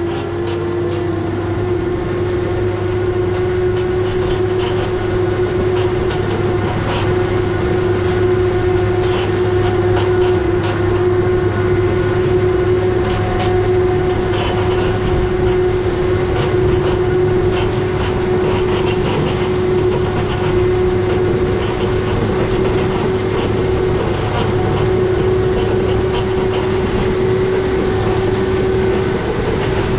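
Hagie STS16 self-propelled sprayer running steadily in the field: a low engine drone under a strong steady whine that creeps slightly higher in pitch.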